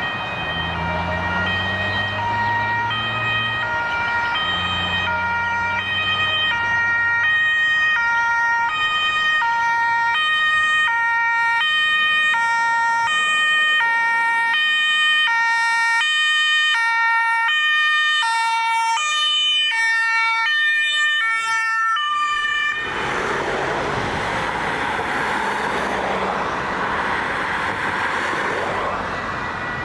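German two-tone emergency siren on an approaching ambulance, switching back and forth between a high and a low pitch. The alternation gets faster about halfway through, and about 23 seconds in the siren tones give way to a loud rushing noise of traffic passing close.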